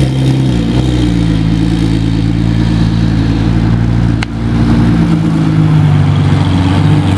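Porsche GT2 RS Clubsport 25's twin-turbo flat-six running at low revs as the car pulls away slowly, its note rising and falling slightly with small changes in throttle. A brief sharp click a little after four seconds in.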